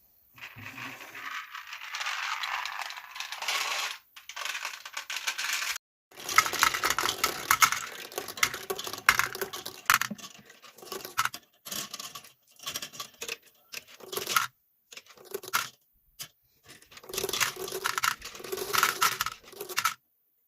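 Marbles rolling and clattering down a wooden HABA marble run: a smooth roll at first, then dense runs of rattling clicks as they knock and drop through the blocks, cut off by several short silences.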